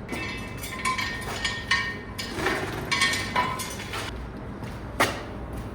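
Metal clinks and knocks from jacking up a car: a run of irregular ringing clinks, then a single sharper knock about five seconds in.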